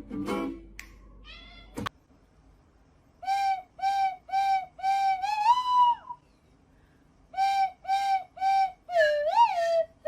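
A cat meowing in a run of short, same-pitched mews, then a longer mew that rises in pitch. After a pause come three more short mews and two that swoop up and down near the end.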